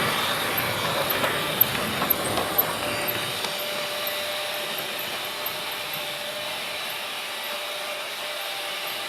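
Freight train rolling past: a broad rumble and rattle that slowly fades, with several sharp knocks in the first three seconds and a faint steady whine from about three seconds in.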